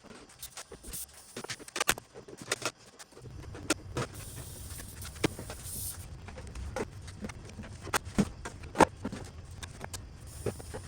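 Sharp knocks and clicks of wooden cabinet panels being fitted together and brad-nailed, scattered and irregular. A steady low hum comes in suddenly about three seconds in.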